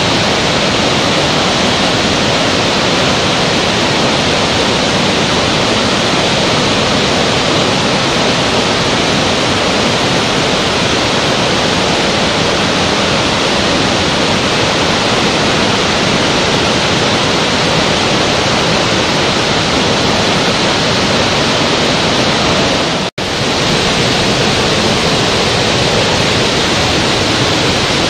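Steady rushing noise of a large waterfall, loud and unchanging, broken once by a split-second dropout about 23 seconds in.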